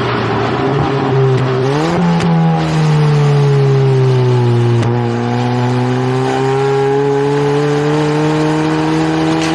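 Ford Focus ST Mk4's engine and exhaust under way. The engine note holds steady, jumps up sharply in pitch about two seconds in, sinks slowly for a few seconds, then climbs steadily again as the revs build.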